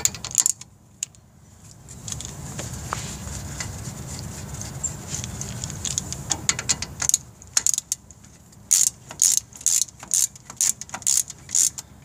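Socket ratchet tightening a bolt on a front brake caliper: a couple of knocks at the start, then from a little past halfway short runs of rapid pawl clicks, about two strokes a second.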